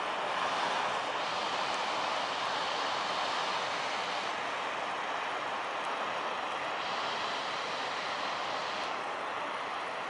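Steady roar of large ocean waves breaking: an even rushing noise with no distinct events.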